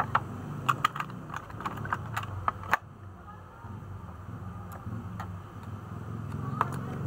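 Light clicks and taps of small metal parts as a sewing machine needle is fitted into its clamp and the clamp screw is tightened with a small screwdriver. The clicks come thick and fast for about the first three seconds, then only a few. A steady low hum sits underneath.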